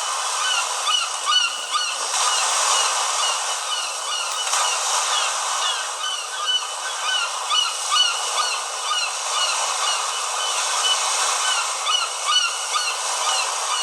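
A nature-sound phone ringtone playing through the phone's small speaker: a flock of birds calling, many short chirps overlapping several times a second over a steady rushing noise, with no bass.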